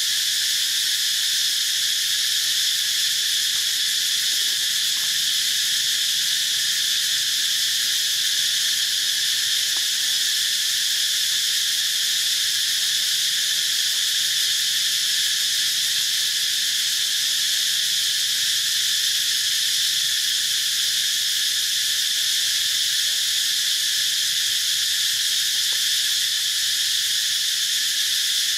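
Steady, unbroken high-pitched chorus of jungle insects.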